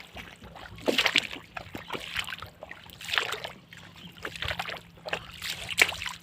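Shallow muddy water splashing and sloshing as hands grope through it for fish, in three louder bursts: about a second in, around three seconds in, and near the end.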